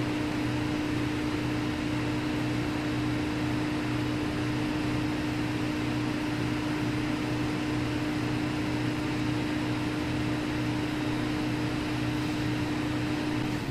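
Steady whirring hum of the 2004 Nissan 350Z's electric fan running during the ECU flash with the ignition on and the engine off. Right at the end it winds down in pitch and fades out as the flash completes.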